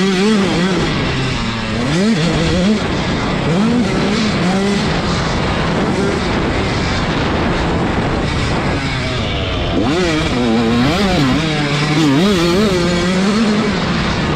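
Motocross dirt bike engine revving up and dropping back again and again as the rider works the throttle through the turns and straights. A constant rush of wind noise on the onboard microphone sits under it. The pitch swings are strongest at the start and again for a few seconds near the end.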